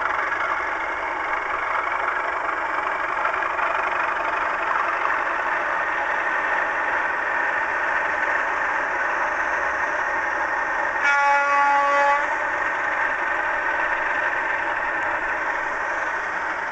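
Recorded Class 37 diesel engine sound played by DCC sound decoders through the small onboard speakers of model locomotives, running steadily under power with the engine thrash. A single horn blast sounds about eleven seconds in and lasts about a second.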